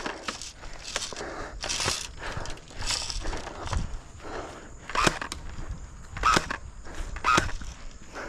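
Footsteps rustling and crunching through grass and dry leaves, with a few sharp clicks about a second apart in the second half.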